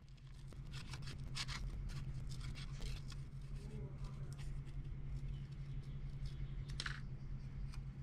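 Scissors snipping through thin paper in a run of short, unevenly spaced cuts, over a steady low hum.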